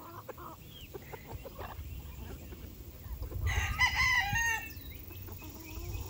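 Backyard chickens on the loose; a rooster crows once, a call of about a second, roughly halfway through, over softer scattered flock sounds.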